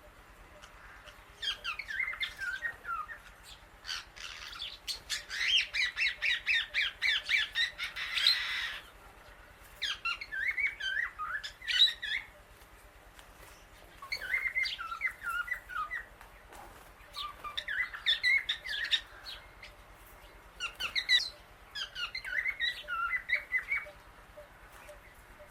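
Female Indian ringneck parrot squawking and chattering in six bouts of rapid, harsh call notes, the longest running about five seconds, with short pauses between.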